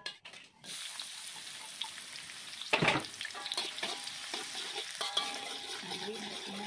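Sliced shallots dropped into hot oil in a wok, with a loud burst of sizzling about three seconds in. They then keep frying with a steady sizzle while a metal spatula stirs and scrapes against the wok.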